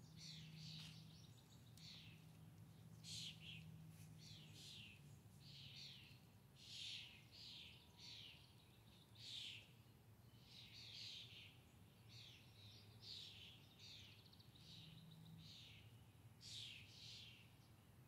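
Faint birdsong: many short, falling chirps from songbirds, repeated every second or so. A low steady hum sits underneath at first and returns briefly near the end.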